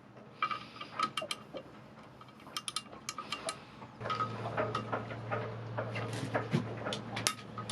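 Irregular metallic clicks and clinks of hand tools and parts being handled on a Yanmar 1GM marine diesel's belt drive during a belt change. A steady low hum comes in about four seconds in.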